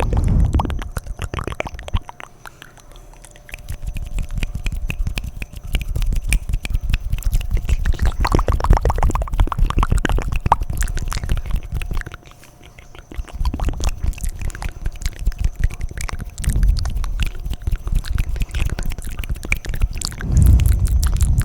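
Close-up wet mouth sounds into the microphone: fast, dense clicking and smacking of lips and tongue with a low rumble underneath, in long runs broken by short pauses about two seconds and twelve seconds in.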